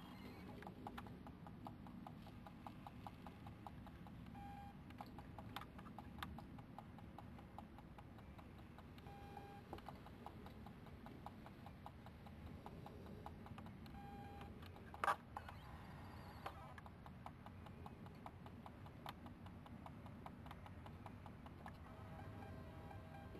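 Faint, irregular crunching clicks of an animal chewing food, over a low steady hum. Three short beeps come about five seconds apart, and one sharper, louder click about fifteen seconds in.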